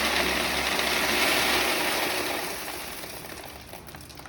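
Roasted coffee beans pouring in a stream through a gravity-fall metal detector, tapering off over the last two seconds. No reject alarm sounds: the detector passes them as clean product.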